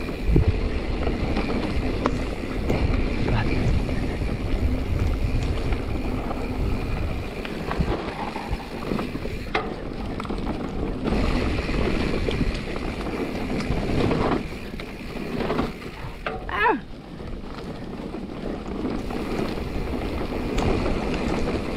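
Riding noise of a 2021 Giant Trance X 29 3 full-suspension mountain bike on a dirt trail: a steady rush of wind on the microphone over the rumble of tyres on dirt, with a few sharp knocks from bumps.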